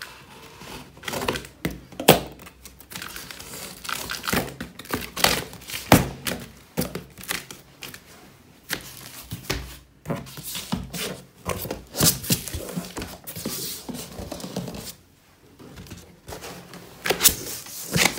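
Scissors cutting open a large cardboard carton, then the cardboard flaps being pulled back and folded open. Irregular snips, knocks and thumps mixed with crinkling and scraping of cardboard.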